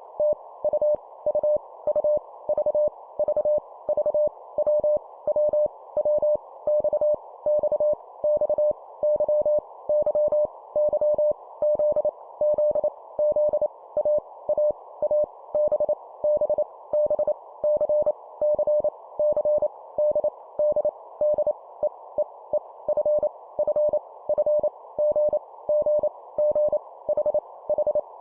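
Morse code (CW) sent at 25 words per minute: a single mid-pitched beep keyed on and off in short dots and longer dashes, over a steady hiss. This is copy practice, with each letter sent three times.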